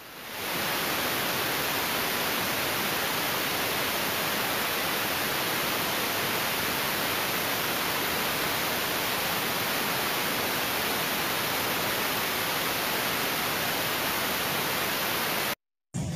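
Steady, even hiss like static, with no rhythm or tone in it. It fades in at the start and cuts off suddenly near the end.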